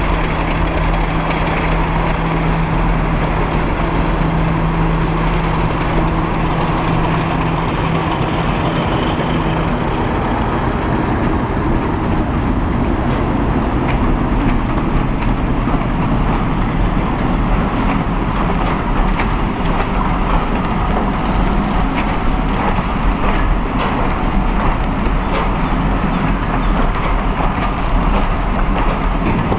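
A diesel locomotive passes with its engine running as a steady low tone until about a third of the way in. Then its train of coaches rolls by with a continuous rumble and wheels clicking over the rail joints.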